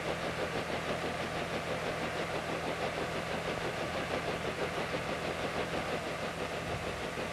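An engine running steadily: an even, low drone that does not change, with a light hiss over it.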